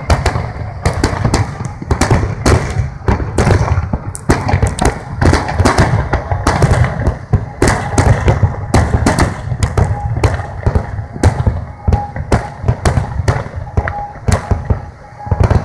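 Large aerial fireworks display: shells bursting in quick succession, a dense, unbroken run of booms and cracks.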